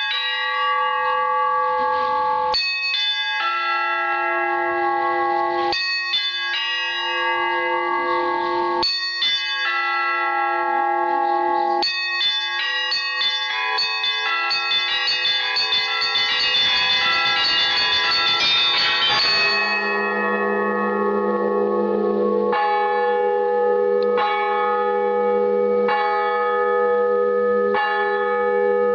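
Russian Orthodox church bells rung by a bell-ringer in the traditional zvon style. Chords of smaller bells come about every three seconds, then a quick, dense run of small bells. From about two-thirds of the way through, a deeper bell joins in and sounds with the others in a steady rhythm.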